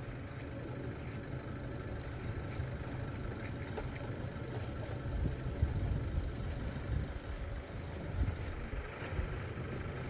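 Farm tractor's diesel engine idling steadily, a low even hum.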